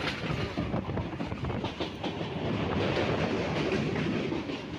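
Howrah–Tarakeswar local passenger train running, its wheels clattering over the rail joints with a steady rumble.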